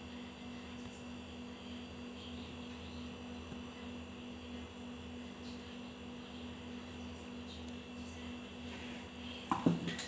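Steady electrical hum with a few faint clicks of hand work on a ceiling fan's wiring, and a short, louder clatter near the end as a tool or part is handled.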